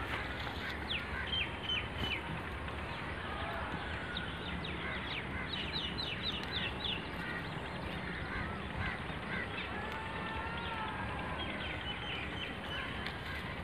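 Birds calling and chirping over a steady outdoor background hiss, with a quick run of about seven chirps around six seconds in.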